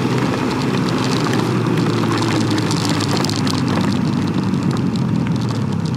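Can-Am Ryker Rally's three-cylinder engine running steadily under dense wind and heavy rain noise, its note falling slowly over the first few seconds.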